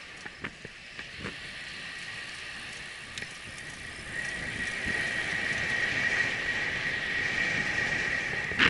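Bicycle riding on a paved path and picking up speed: wind and tyre noise grow louder from about halfway through, under a steady high whine. A few light clicks early on and a sharp click at the very end.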